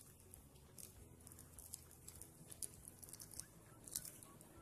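Faint handling noise from a wristwatch being turned in the hands: a few soft, scattered clicks and light rustles over a low room hum.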